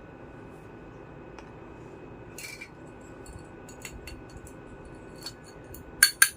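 Small pieces of a miniature toy kitchen set being handled, giving light scattered clinks and taps. There is a short rustle about halfway through and a few sharp, louder clinks near the end.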